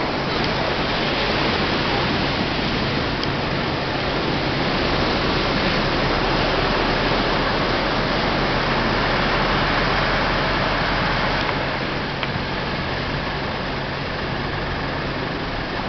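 Steady rushing noise with a low, even engine hum under it; the hum cuts off near the end.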